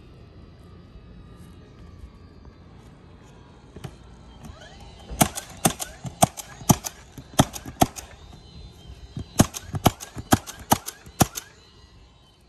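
Nails being driven into asphalt roof shingles as they are fastened down: two runs of sharp strikes, about three a second.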